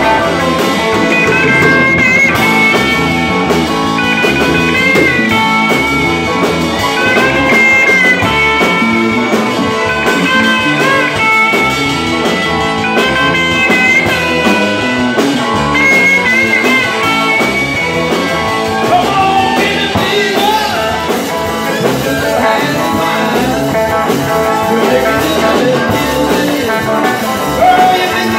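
Live rock-and-roll band playing an instrumental break, an electric guitar lead with bent notes in repeated phrases over the full band.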